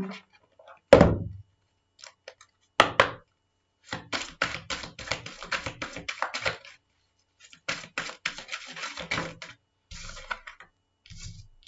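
A deck of Belline oracle cards being shuffled by hand: two sharp knocks early on, then two long runs of rapid card clicks, and a softer rustle as a card is laid on the table near the end.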